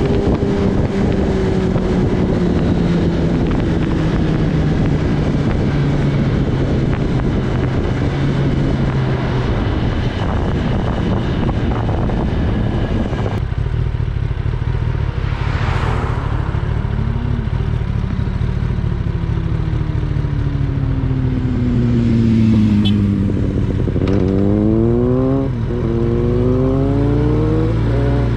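Kawasaki Ninja ZX-10R's inline-four engine from on the bike, its note slowly falling under heavy wind noise on the microphone. About halfway through the wind drops away suddenly and the engine slows further. Near the end it revs up through a couple of quick gear changes.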